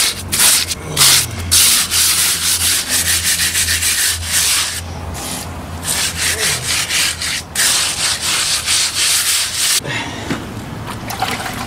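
Repeated gritty scraping strokes as rapid-set mortar is rubbed by hand into the holes of rough concrete steps; the strokes stop about two seconds before the end.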